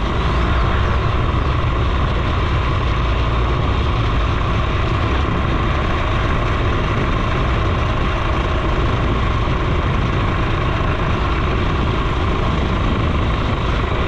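Suzuki FZ50 moped's small single-cylinder two-stroke engine running at a steady speed while riding, mixed with a dense, steady rush of wind and tyre noise on the handlebar-mounted camera.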